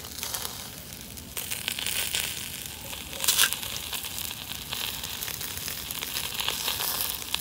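Ghee sizzling and crackling on a charcoal grill as chicken tikka skewers over the hot coals are basted with it. A steady sizzle is broken by scattered pops.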